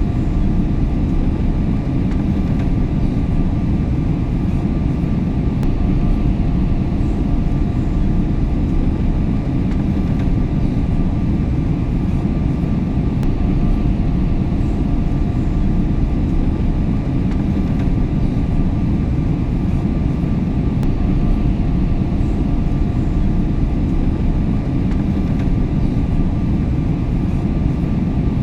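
Steady airliner cabin noise in cruise: a constant deep rumble of engine and airflow with a faint steady hum above it, unchanging throughout.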